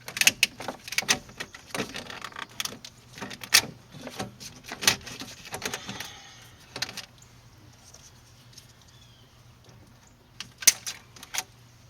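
Irregular clicks, knocks and rattles of plastic and metal parts being handled as air intake hoses are pulled off the air filter housing of a 1995 Ford F-250, dense at first, then a pause and two last knocks near the end.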